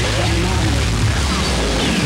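Harsh electronic noise music: a steady low drone under dense noise, with pitches sweeping down and back up in repeated V-shaped glides.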